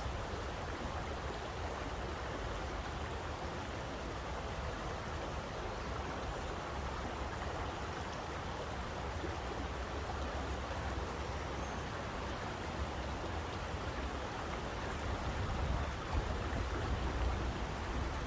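Steady rushing water with a low rumble underneath, getting a little louder near the end.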